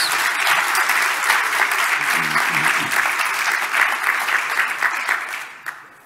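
Audience applauding, dying away near the end.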